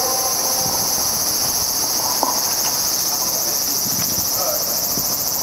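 Steady, high-pitched chorus of singing insects, a continuous shrill with a fine rapid pulse.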